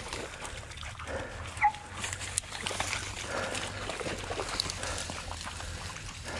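A hunting dog gives one short, sharp yelp about a second and a half in, over the rustle of dry brush being pushed through.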